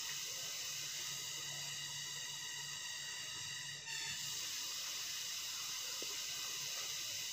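Steady hiss of background noise, with no distinct events, broken by a brief dip about four seconds in.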